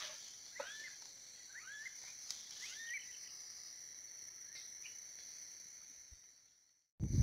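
Faint, steady high-pitched chirring of crickets or other insects at a marshy pond, with a few short chirps in the first three seconds. The sound cuts out about six seconds in.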